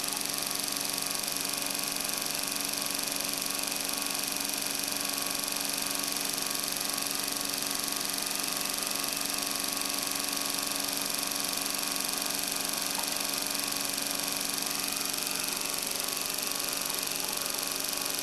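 CR-Kromrey converter, a motor-driven rotary generator, running at steady speed: an even whirring hum made of many held tones that never change in pitch or loudness.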